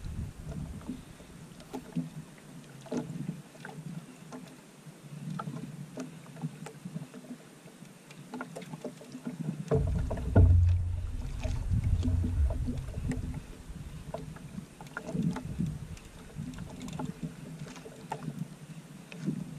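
Water lapping against the hull of a small wooden outrigger boat, with scattered light clicks and knocks. A louder low rumble runs from about ten to thirteen seconds in.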